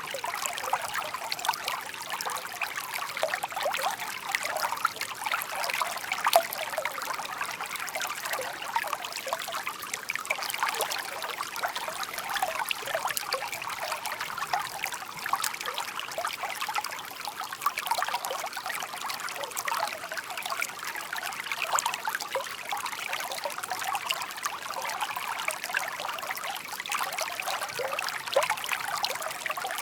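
A shallow stream babbling and trickling steadily, with many small splashes and gurgles of water running over stones.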